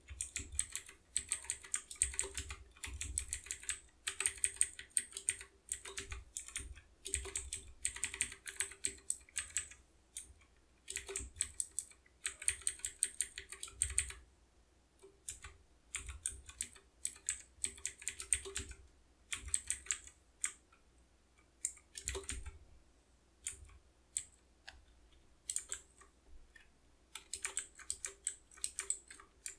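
Typing on a computer keyboard: quick runs of keystrokes in bursts of a second or two, with short pauses between them.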